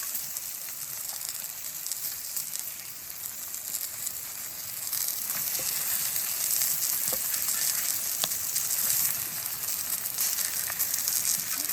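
Food sizzling steadily in a hot frying pan, the sizzle growing louder about five seconds in, with a few faint pops.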